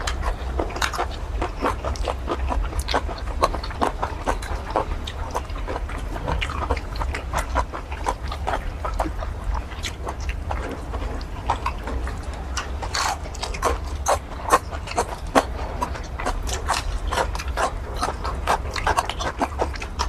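Close-up chewing and wet lip-smacking of squid in curry sauce: a fast, irregular run of short wet clicks and smacks, over a steady low hum.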